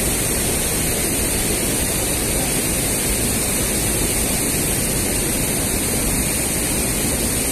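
Steady rushing of a shallow river flowing over stones, an even noise without breaks.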